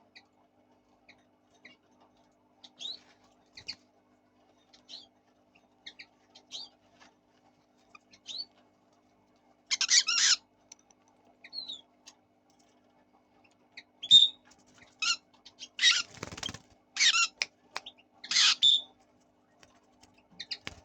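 Fischer's lovebirds chirping in short, high calls, with several louder, harsher bursts about halfway through and again near the end.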